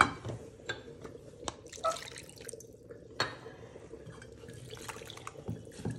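A spoon clinking and scraping a few times against a stainless steel bowl as semolina batter is stirred, and water poured into the bowl.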